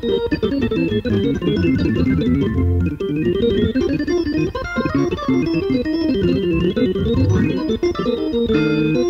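Hammond organ played through a Leslie speaker, a quick line of changing notes over a low bass line in a jazz boogaloo.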